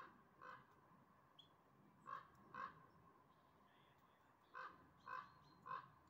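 A crow cawing in the distance: seven short harsh caws, in two pairs and then a run of three. A few faint high chirps of small birds come in between.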